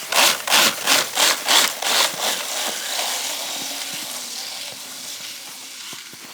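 Crunching and swishing in wet, slushy snow: a quick run of about three crunches a second, stopping a little over two seconds in, then a steady hiss that slowly fades.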